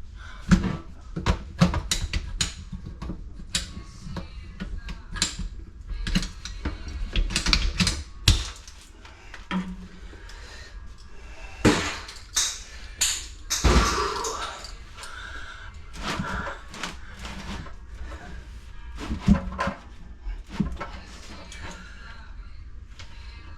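Irregular clicks, knocks and clatter of hand tools and pipe being handled during water-heater plumbing work, with a louder, noisier stretch about halfway through.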